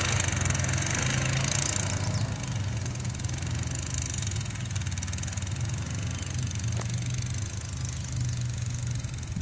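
Steady motor hum with a high hiss on top, slowly fading.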